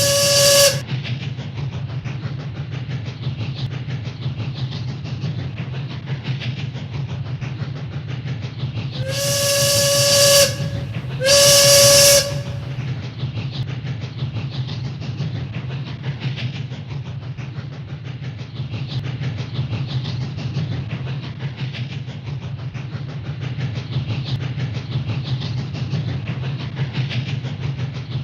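Three loud whistle blasts, each one held steady tone, over a continuous low rumble and hiss: one right at the start, then two close together about ten and eleven seconds in.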